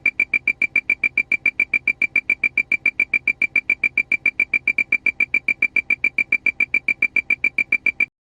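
Aircraft warning alarm: a rapid train of short, high-pitched electronic beeps, about eight a second, that cuts off abruptly near the end.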